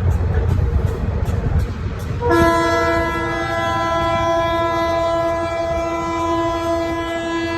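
A train's locomotive horn sounds one long, steady blast, starting about two seconds in and held for more than five seconds, over the low rumble of the train running on the rails.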